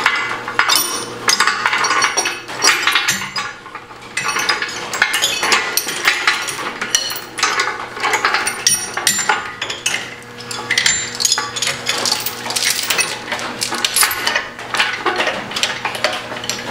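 Steel lifting chain clinking and rattling in many irregular bursts as it is turned and evened out on the hook.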